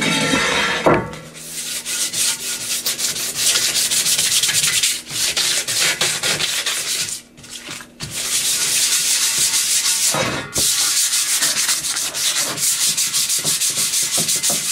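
Sandpaper, coarse 60 grit, rubbed by hand in rapid back-and-forth strokes over the painted metal base of a gumball machine, roughing up the glossy paint so new paint will stick. The scratchy sanding starts about a second in and stops briefly twice.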